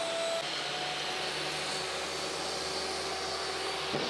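Electric woodworking power tool running steadily: an even whirring hum with a few steady whine tones, and a short soft knock near the end.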